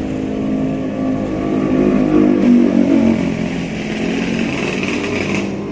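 Honda Vario 125 scooter's single-cylinder engine revved up and let back off, with the CVT rattling as the throttle is released: the sign of worn roller slider pieces.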